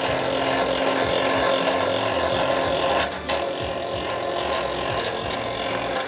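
Electric scrap wire stripping machine (model SE-02) running, its motor turning the geared feed rollers with a steady mechanical noise that dips briefly about three seconds in.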